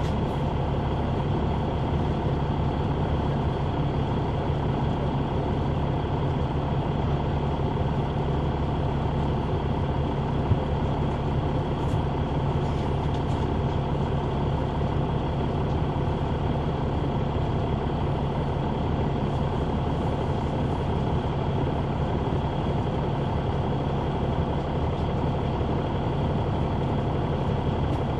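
Caterpillar C9 ACERT diesel engine of a 2004 Neoplan AN459 articulated transit bus, heard from a rear seat inside the bus, running at a steady pitch with a low hum.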